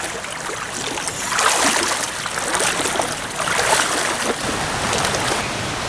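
Stream water rushing, with gusts of wind swelling and fading about a second and a half in and again near four seconds.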